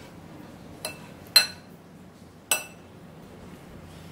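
Steel spoon clinking against the side of a glass bowl while stirring a salad: three clinks with a brief ring, the second the loudest.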